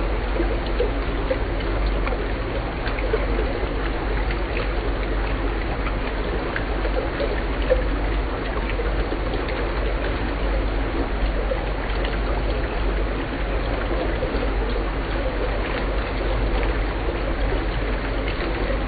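Water running through a laboratory open-channel flume, splashing as it falls through slots in a block and rushing down the channel: a steady crackling rush with a constant low hum beneath.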